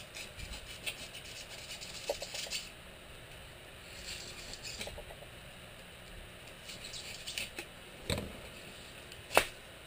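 Utility knife blade cutting and scraping through rigid foam insulation board, a string of faint scratchy rasps and ticks. One sharp click near the end.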